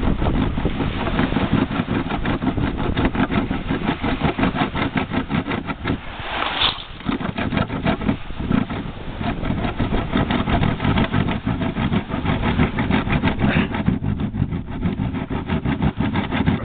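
Saw-toothed spine of a machete sawing back and forth through the wooden oarlock mount on a boat's rail, in quick steady strokes, with a brief pause about seven seconds in.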